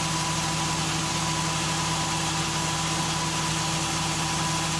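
VW Polo Vivo's 1.4-litre CLP four-cylinder petrol engine idling steadily and smoothly at its first start after a fresh oil, filter and spark-plug service.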